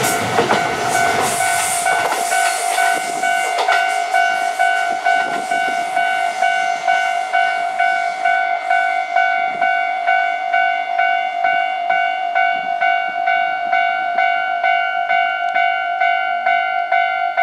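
Japanese level crossing warning bell ringing steadily, about two strokes a second. Over the first few seconds, the rumble of the Kintetsu 2800-series and 1253-series express crossing dies away beneath it.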